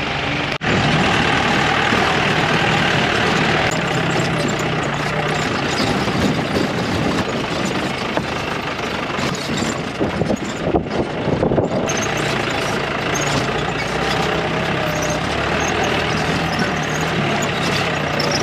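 An old jeep's engine running under load on a rough off-road track, with a steady low hum. Knocks and jolts from the body come through, most of them clustered about halfway through.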